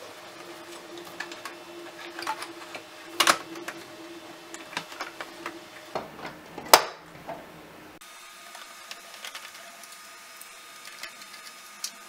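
A TFX power supply's metal housing being fitted into a slimline PC's steel case: scattered light clicks and knocks, with two sharper knocks, one about three seconds in and one near seven seconds.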